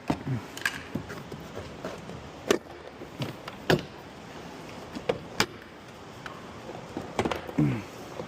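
A series of irregular sharp clicks and knocks from a car door and its trim parts being handled during disassembly, with a cluster of them near the end.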